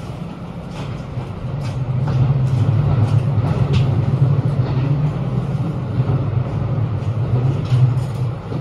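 Running noise inside a JR Hokkaido 721 series electric train: a steady low rumble of wheels on the rails, growing louder about two seconds in, with occasional light clicks.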